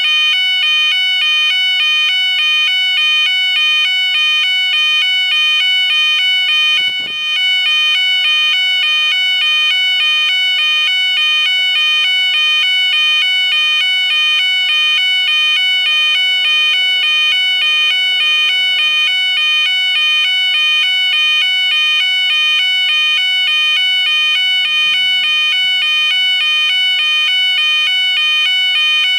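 Railway level crossing warning alarm sounding continuously while the barriers are down: a loud electronic alarm alternating rapidly and evenly between two pitches.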